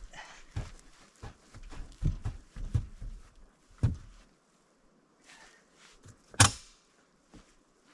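Irregular knocks and thuds, about a dozen in the first four seconds, then a single sharp, loud bang about six and a half seconds in.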